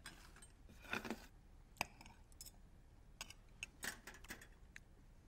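Faint clinks of cutlery on a plate as food is cut and tasted: a scattering of light, sharp clicks, about eight over the few seconds.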